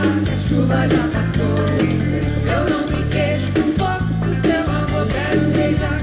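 Live Brazilian pop music from a stage band, with a lead vocal over a steady, repeating bass beat.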